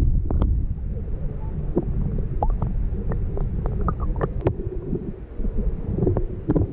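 Creek water heard through a submerged camera housing: a muffled, low rushing rumble with scattered sharp clicks and ticks throughout.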